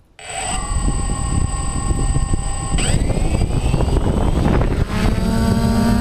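DJI Phantom quadcopter's four motors and propellers spinning up from a standstill with a sudden start. They hold a steady whine, rise in pitch about three seconds in as the throttle opens, and change again near the end as the drone lifts off the grass.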